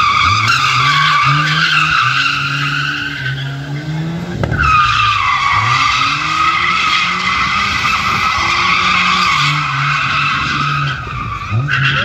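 Mazda RX-7 FC drifting through a cone course, tyres squealing in two long stretches while the engine revs up and down. A brief sharp crack about four seconds in separates the two stretches.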